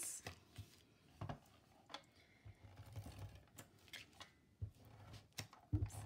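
Cardstock being handled and adhesive tape run onto the paper tabs from a handheld tape dispenser: soft rustling with scattered sharp clicks, the clearest about a second in, at two seconds and several near the end.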